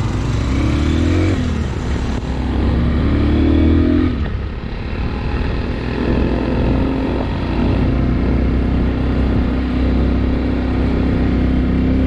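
Motorcycle engine heard from the rider's own bike while riding: it rises in pitch twice in the first four seconds as the bike speeds up, then runs steadily at cruising speed.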